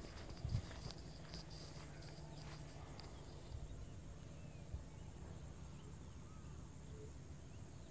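Outdoor ambience of steady high insect calls and a few short bird chirps, with two footsteps just after the start.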